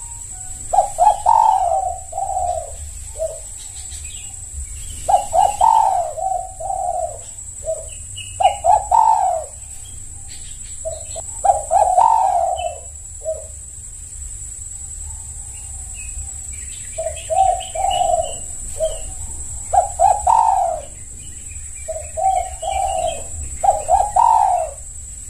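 Spotted dove (tekukur) cooing, in repeated short phrases of several coos every couple of seconds, with a longer pause about halfway through.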